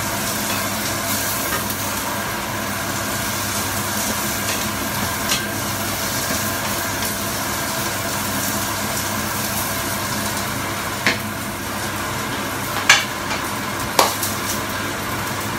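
Sliced carrots and green beans sizzling in a stainless steel frying pan while a wooden spatula stirs them, with a few sharp knocks of the spatula against the pan, mostly in the second half.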